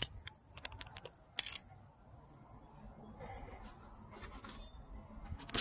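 Scattered sharp clicks and light knocks, the loudest about a second and a half in, over a low rumble, with a thin steady high-pitched whine throughout.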